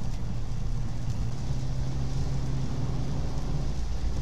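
Car engine and tyre noise heard inside the cabin while driving at highway speed on a wet road: a steady low hum under the hiss of the tyres on water.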